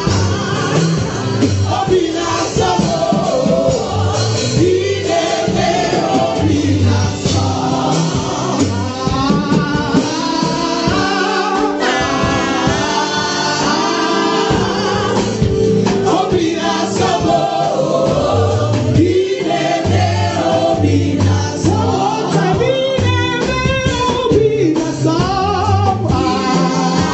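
Live gospel music: a woman singing lead into a microphone, with backing voices and a steady instrumental bass line underneath.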